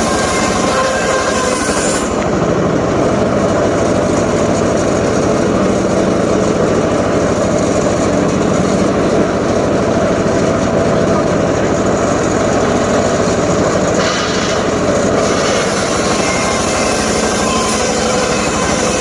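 Homemade circular saw rig running continuously while sawing up a freshly felled johar log, a steady loud mechanical din that thins in its higher tones about two seconds in and again near the end.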